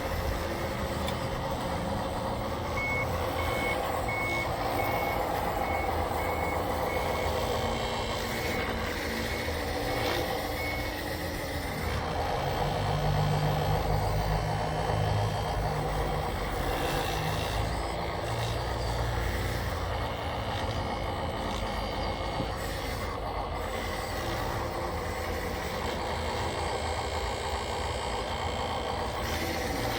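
A remote-control construction machine's reversing beeper sounds a steady run of evenly spaced beeps that stops about a third of the way through. Underneath, the RC machines' motors and gears whine and rumble continuously as they work the dirt.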